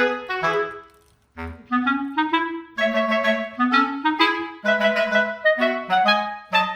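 Background music: a melody of short, separate notes on a woodwind-like instrument, breaking off briefly about a second in and then carrying on.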